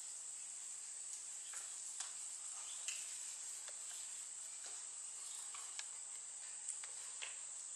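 A faint, steady, high-pitched insect chorus, with scattered light ticks and rustles.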